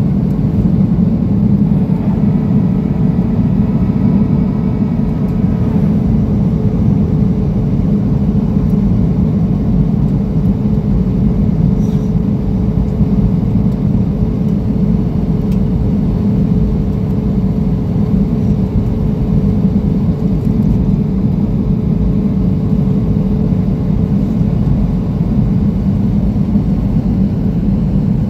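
Steady cabin noise inside a Boeing 737-700 airliner: the CFM56-7B jet engines and rushing air make an even rumble, with a faint steady hum over it.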